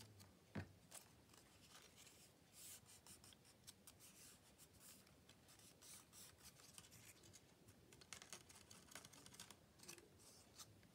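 Near silence with faint scratching and light ticks of paper being handled and worked by hand, and one sharper tick just after the start.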